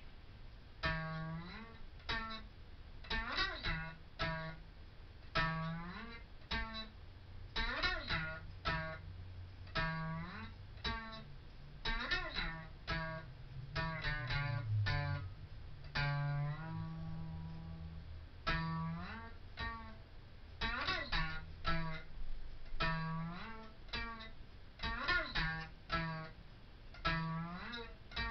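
Homemade plank slide guitar, played flat across the lap with a slide bar: plucked notes that bend and glide in pitch, over a repeated low note, in an unhurried blues-style run.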